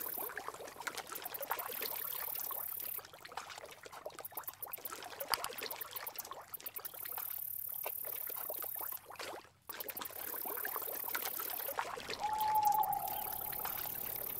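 Water trickling and splashing in a run of small irregular clicks, with a high hiss that cuts in and out. A steady mid-pitched tone sounds for about two seconds near the end.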